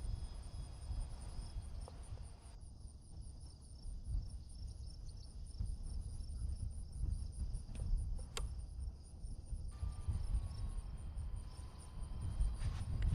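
Crickets chirping in a fast, steady pulsing trill over a low rumble, with a single sharp click about eight seconds in and a faint, slowly falling whine near the end.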